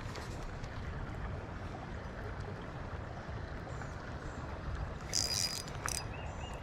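Steady outdoor rushing of wind on the microphone over flowing creek water, with a brief high-pitched whir about five seconds in.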